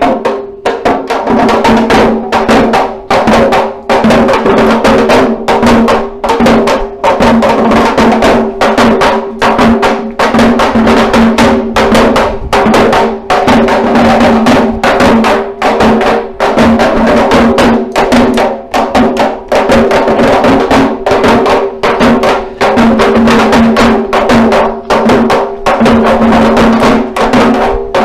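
Parai frame drums beaten in a fast, driving kuthu rhythm of dense, sharp strokes, with a steady tone held underneath.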